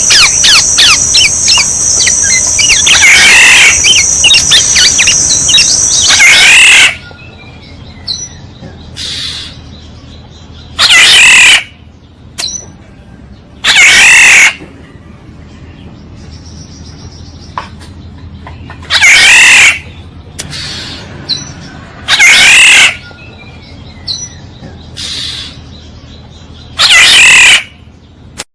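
Oriole calls from a bird-luring recording. The calling is continuous and loud for about the first seven seconds. After that come about six single loud calls, each under a second long and a few seconds apart.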